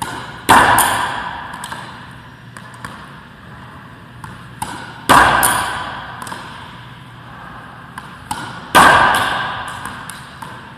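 Three racquetball forehand shots: each a sharp crack of the racquet hitting the ball, about a second in, about five seconds in and near nine seconds in, ringing out with a long echo in the enclosed court. Fainter taps fall in between.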